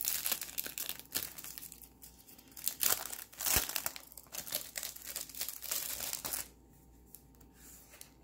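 Wrapping crinkling and rustling as an item is unwrapped by hand, a dense run of sharp crinkles that dies down about six and a half seconds in.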